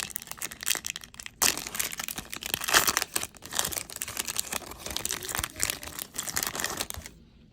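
Foil wrapper of a Stadium Club Chrome trading card pack being torn open and crinkled. The crinkling stops about seven seconds in.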